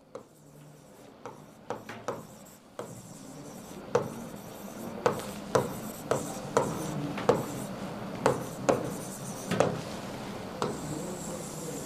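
A pen writing on a board: a steady scratching rub as the letters are drawn, with short sharp taps each time the tip strikes the surface, coming about every half second to a second from about four seconds in.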